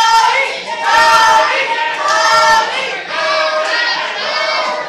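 Crowd of fans chanting in unison, many high voices holding drawn-out syllables in a rhythm of about one a second.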